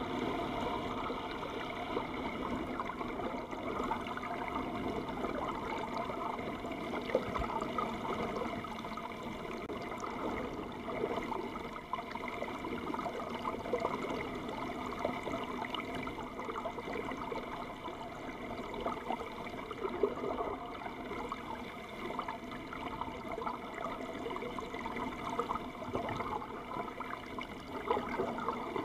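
Water rushing and bubbling past a boat hull heard underwater at speed, with a steady hum of the boat's engine carried through the water.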